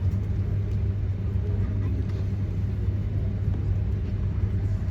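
Steady low hum of an Airbus A350-900 airliner cabin at the gate, from the air-conditioning and ventilation, with faint passenger voices underneath.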